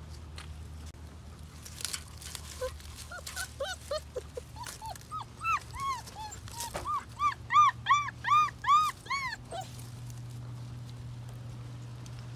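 Doberman puppy whining in a run of short, high, arching whimpers, each rising and falling in pitch, about three a second. They grow louder toward the middle and stop a few seconds before the end.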